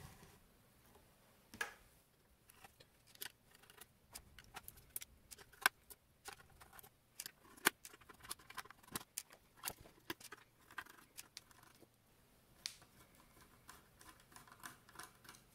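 Many small, irregular clicks and taps from the metal case and screws of a Merlin helicopter control display unit being handled and taken apart by hand.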